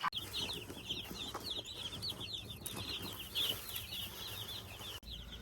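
A flock of young Cornish cross broiler chicks peeping continuously, many short high chirps overlapping in a steady chorus.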